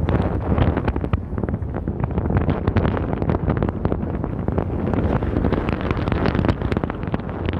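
Wind buffeting the microphone with crackling gusts, over the low steady rumble of a car driving.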